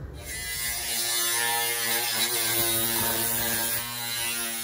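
Small engine running steadily at a constant pitch, like the motor of a handheld trail-clearing tool.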